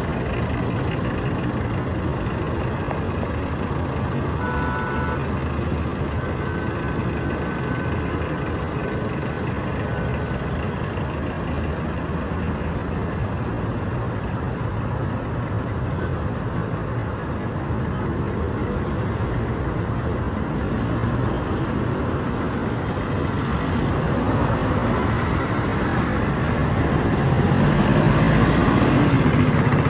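Busy road traffic: engines and tyres of cars and trucks passing in a steady rumble, getting louder near the end as a heavier vehicle goes by. A brief short horn-like tone sounds about five seconds in.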